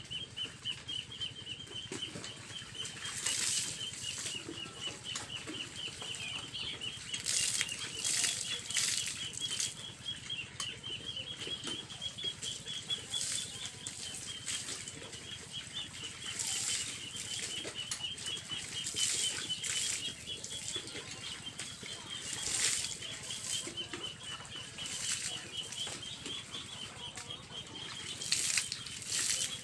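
Water splashing and scrubbing in short, irregular bursts as bicycles are washed by hand, over a steady high-pitched pulsing trill that runs on without a break.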